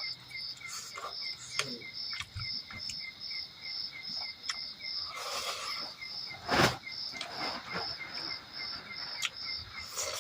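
Insects chirping in a steady, even rhythm of about two to three chirps a second, with eating noises from a person chewing and handling food. One sharp knock about six and a half seconds in is the loudest sound.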